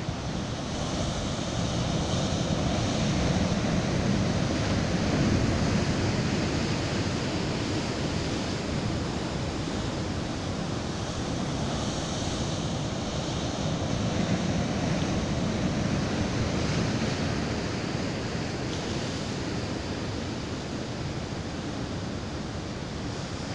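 Heavy surf breaking and washing over a rocky shore, surging louder about five seconds in and again around twelve seconds, with wind buffeting the microphone.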